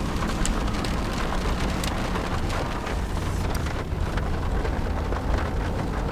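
Rain pattering on a moving pickup truck, heard from inside the cab: many small drop clicks over a steady low engine and road rumble.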